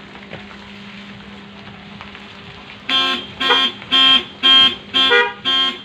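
Vehicle horn honking six times in quick succession, about two short blasts a second, starting about three seconds in over a low steady hum.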